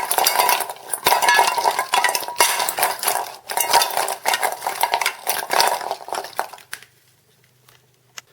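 Pot stickers being tossed in olive oil in a bowl: a utensil clatters and scrapes against the bowl in rapid, busy clinking. It stops a little before the end, leaving one small click.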